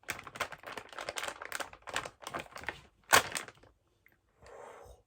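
Plastic snack bag of Reese's dipped pretzels being handled and opened, with quick crackling and crinkling throughout and one louder crackle about three seconds in.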